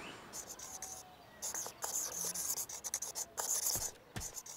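A pen scribbling on paper in quick, uneven scratchy strokes, with two soft thumps near the end.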